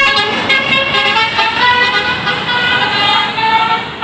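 Tour bus's multi-tone telolet (Basuri) horn playing a fast tune, its notes stepping up and down several times a second, with a short dip near the end.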